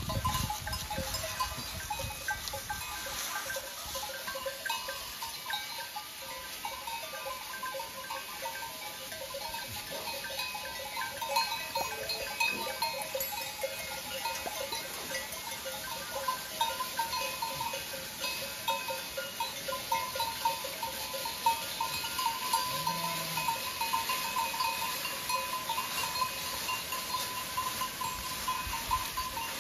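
A herd of goats on the move, their neck bells clanking and jingling without a break, over the rustle of hooves through dry fallen leaves.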